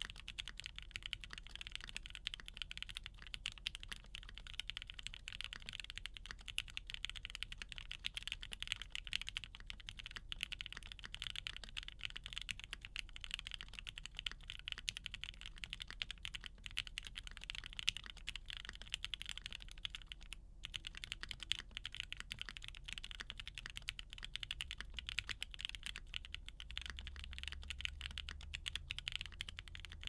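Steady typing on a 7V mechanical keyboard with lubed and filmed Gateron Black Ink linear switches on a polycarbonate plate, capped with GMK keycaps: a dense run of key clacks, broken by a brief pause about two-thirds of the way through.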